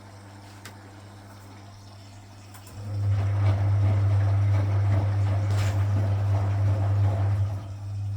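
Vintage Frigidaire Super Deluxe Automatic 50 front-loading washing machine starting a tumble about three seconds in: a loud motor hum with water and laundry churning in the drum for about five seconds, then the motor cuts out and the drum slows to a stop. It has filled to its water level for the wash.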